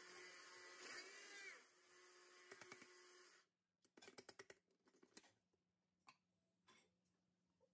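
Near silence, with a few faint plastic clicks as the electric spice grinder's jar is handled and lifted off its base.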